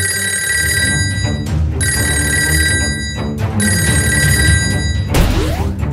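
A telephone bell ringing three times, each ring about a second and a half long with short gaps between, over background music. A whoosh rises near the end.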